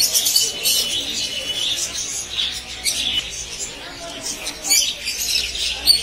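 Many caged budgerigars and other small birds chattering together: a dense, continuous run of short high chirps and squawks.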